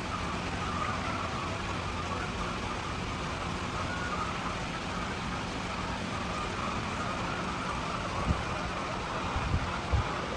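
Steady motor hum with a wavering whine over it, and a couple of soft knocks near the end.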